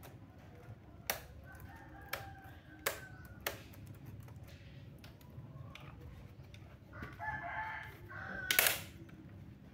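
Sharp clicks of laptop keys being pressed, four in the first few seconds, with a rooster crowing in one long call near the end. A loud knock comes just before the crow ends.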